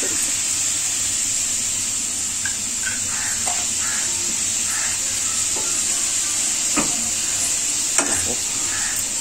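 Chopped onions frying in oil with turmeric in an aluminium kadai, a steady sizzle while they are sautéed and stirred with a metal slotted spoon. The spoon knocks against the pan twice near the end.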